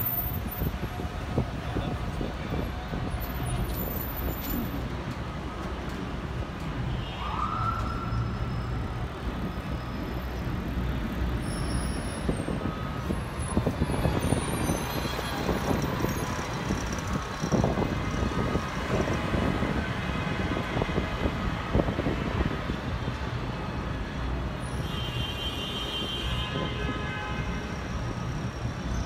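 City street traffic noise: a steady low rumble of passing vehicles, with a short rising whine about seven seconds in.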